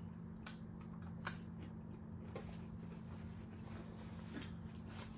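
Faint, scattered clicks and crackles of eating, chewing and handling food, over a steady low hum.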